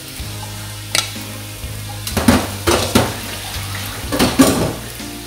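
Stainless steel pot knocking and scraping against a frying pan as cooked rice is tipped and scraped out of it. A sharp click comes about a second in, then two clusters of clatter around two and four seconds in, over a steady low hum.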